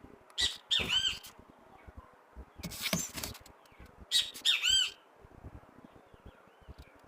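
Chickens squawking: three loud calls with an arching pitch, each just under a second long, about half a second in, about three seconds in and about four seconds in.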